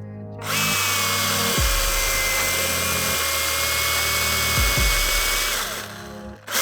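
Milwaukee M18 battery chainsaw running and cutting wood with a steady electric whine. It starts about half a second in, stops near the end and starts again right at the close, over background music with a low beat.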